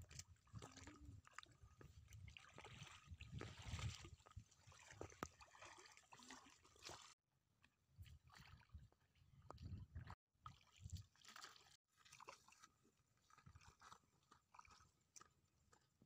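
Faint, irregular footsteps and scuffing: feet squelching in wet mud at the water's edge, then brushing through grass.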